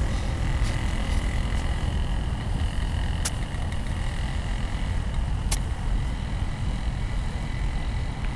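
Wind buffeting the microphone: a loud, uneven low rumble. Two sharp clicks about two seconds apart and a faint steady high tone sound through it.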